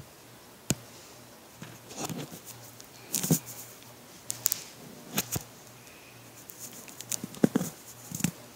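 Scattered clicks, taps and short rustles from someone handling things close to the microphone, over a faint steady low hum.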